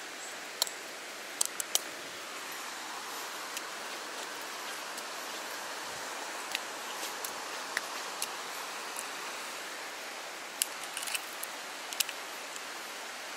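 Steady rushing water of a fast-flowing stream, with scattered sharp clicks and rustles of wet rain gear and tackle being handled close by.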